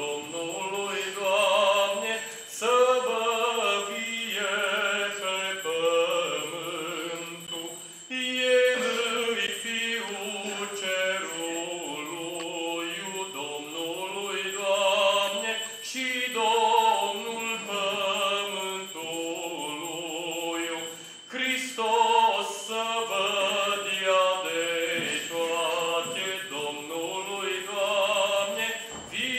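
Male voice singing a Romanian Christmas carol (colindă) unaccompanied, in long phrases with brief breaks between them.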